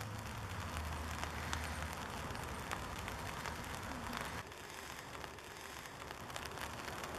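Faint, steady background hiss with scattered light clicks and crackles.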